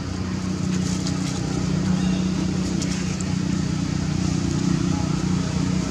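A steady low hum from a running motor, with a few faint clicks over it.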